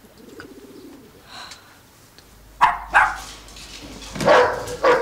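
A dog barking: a quiet start with a soft low sound, then two quick sharp barks about halfway through and more loud barks near the end.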